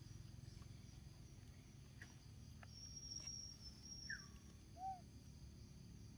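Near silence: faint outdoor ambience with a thin high buzz in the middle and a few faint clicks. Near the end come two short animal calls, a falling squeak and then a brief low hoot-like note.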